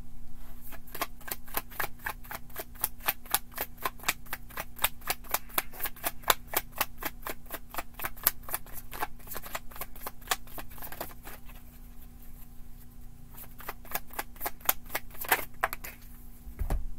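A deck of tarot cards being shuffled hand to hand: rapid crisp card snaps, about five a second, that thin out briefly about twelve seconds in and then pick up again. A single dull thump near the end.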